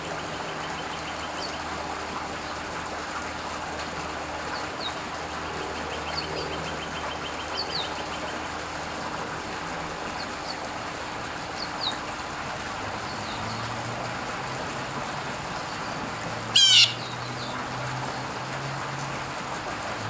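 Outdoor birds: scattered short, high chirps over a steady background hiss, with one brief, loud, harsh bird call about sixteen and a half seconds in. A low engine drone comes in during the last third.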